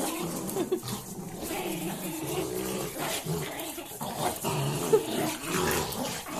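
Two Pomeranians growling at each other as they tug a cloth between them in a tug-of-war, with one brief sharp sound about five seconds in.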